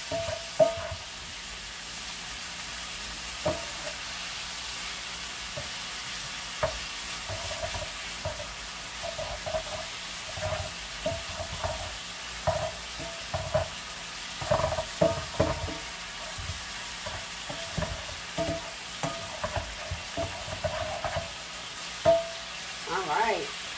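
Ground meat sizzling as it browns in an electric skillet, with a black plastic spatula scraping and tapping against the pan in short, irregular strokes as it is stirred and broken up.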